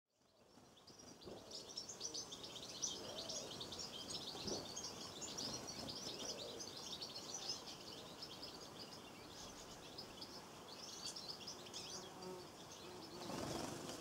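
A small flock of European goldfinches twittering: a dense run of quick, high chirps that fades in at the start and thins out in the later seconds. A brief soft rush of sound comes near the end.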